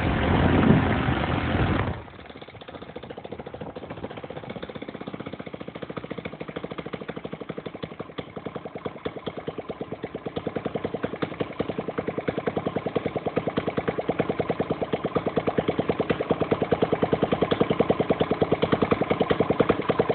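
Stihl 64 engine from a BR600 blower, converted for a model plane and turning a Menz 26-8 propeller, runs at high throttle and is cut back sharply about two seconds in to a slow idle around 1100 to 1300 rpm. At idle each firing stroke is heard separately, and the pulses grow gradually louder.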